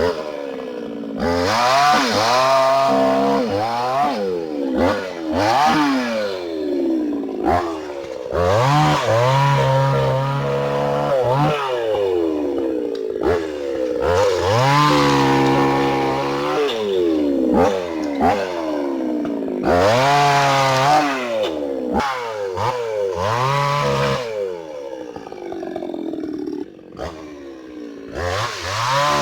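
Hyundai mini chainsaw cutting a rubber tree. Its pitch rises and falls again and again as the chain speeds up and drops back through the wood.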